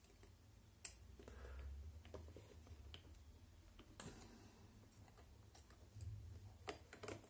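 Faint, sharp clicks of a small screwdriver working a screw into an RC car chassis: one about a second in, another around four seconds, and a few close together near the end.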